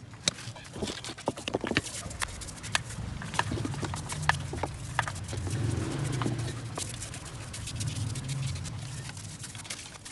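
Irregular metal clicks, taps and knocks of hand tools and engine parts being handled as a motorcycle's generator cover area is opened up for cleaning, over a low hum.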